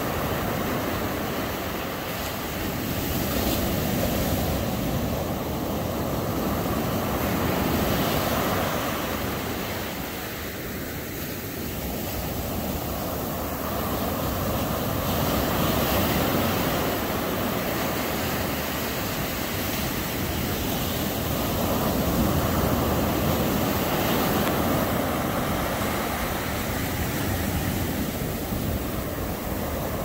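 Ocean surf breaking and washing up a sandy beach: a continuous rushing noise that swells and eases every few seconds.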